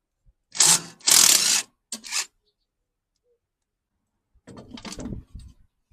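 Metal tool work on the rear cover of a small diesel engine: a wrench and socket clattering and rattling in a few short bursts, first about half a second in and again near the end.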